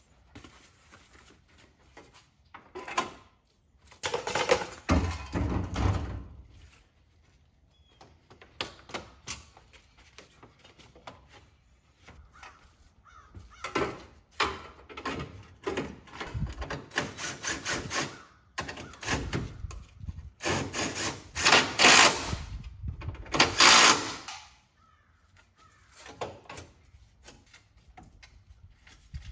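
Plastic trim parts of a car's front end being handled and pushed into place: rattling, scraping and knocking in bursts, with the loudest stretch near the end.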